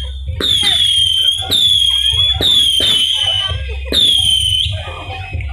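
Whistling fireworks going off in quick succession: about five shrill whistles, each starting with a sharp pop and sliding slightly down in pitch over half a second to a second.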